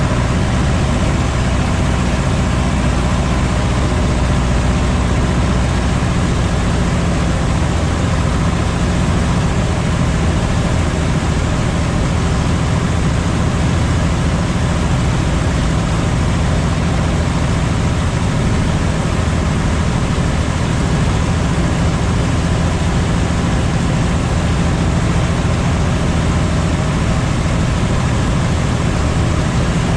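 Steady drone of a Cub light aircraft's piston engine and propeller in level cruise, heard from inside the cockpit, with no change in power.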